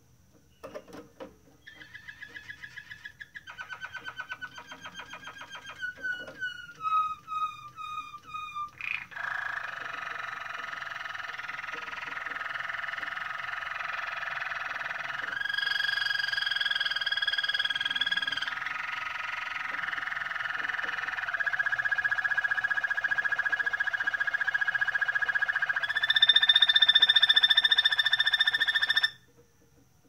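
Waterslager (Malinois) canary singing. A run of quick trilled and falling notes is followed, from about nine seconds in, by one long unbroken rolling song that shifts pitch in steps and grows louder. It stops suddenly about a second before the end.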